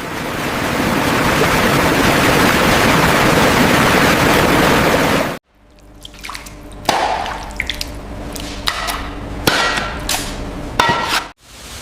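Liquid pouring or running in a steady rush, which cuts off abruptly. It is followed by a quieter run of scattered light clinks and knocks, some ringing briefly, with dripping.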